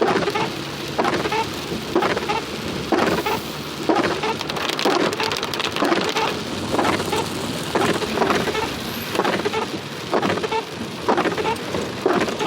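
Heavy rain falling steadily, with many irregular close knocks of drops landing near the microphone.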